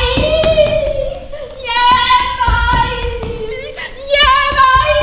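High-pitched voices in long drawn-out notes, in three stretches over a steady held lower tone, with scattered knocks.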